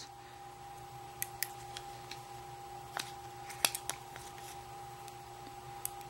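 Faint, scattered clicks and taps from fingers handling a small microswitch as it is lifted out of a float switch's plastic housing, over a steady faint hum.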